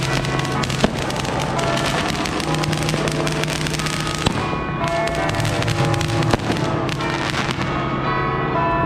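Fireworks crackling densely, many rapid small pops with no pause, over music with long held notes.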